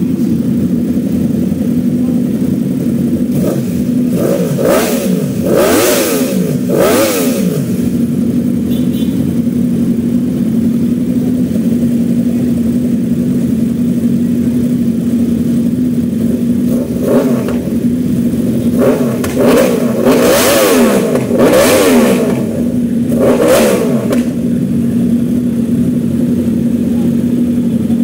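Several 1000cc superbike engines idling together while being warmed up, with a steady hum. About three seconds in, and again about seventeen seconds in, a bike's throttle is blipped in a quick run of revs, each rising and dropping back to idle.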